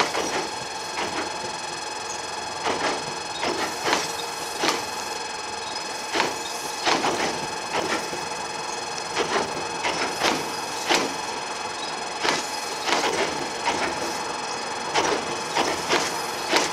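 Wheels of Meitetsu 2200 series railcars, towed unpowered on a delivery run, clacking over rail joints as they roll slowly past. The clacks come singly and in quick pairs, irregularly spaced, over a steady rolling noise with a constant high tone underneath.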